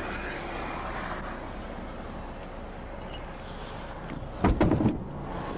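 Steady noise of a stationary car idling, with a short burst of several loud knocks about four and a half seconds in.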